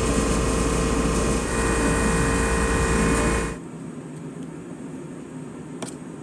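CNC router spindle running steadily with a whine, cut off abruptly about three and a half seconds in. Quieter background noise follows, with one faint click near the end.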